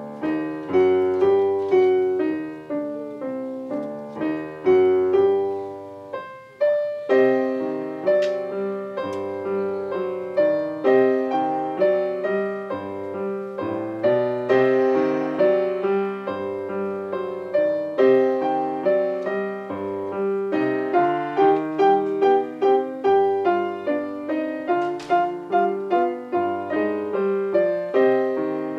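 Grand piano playing a simple beginner piece: a melody of separate notes over a repeating low bass, with a brief break about six seconds in before the playing resumes.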